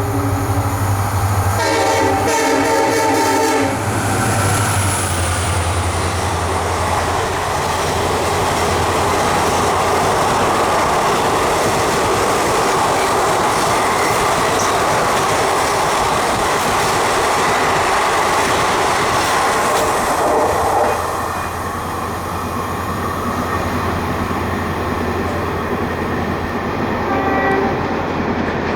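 EMD diesel locomotive sounding its multi-note horn in two blasts, then the loud steady rush and clatter of a train's wheels on the rails, easing somewhat after about twenty seconds. A short horn note sounds near the end.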